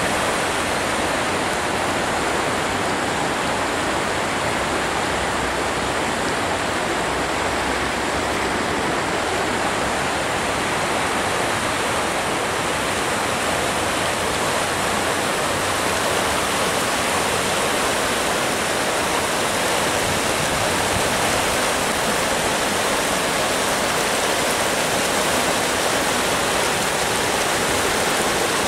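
Barwon River in flood: fast, turbulent floodwater rushing steadily past, a loud, even sound of churning water.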